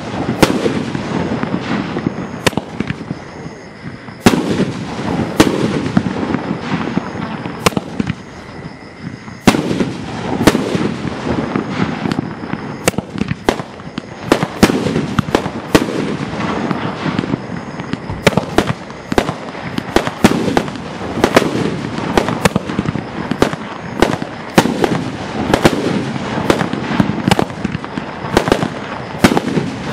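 Mad Ox T-Rex 500-gram fireworks cake firing its shots: sharp bangs of shells bursting overhead, with crackle breaks. In the second half the bangs give way to dense, rapid crackling.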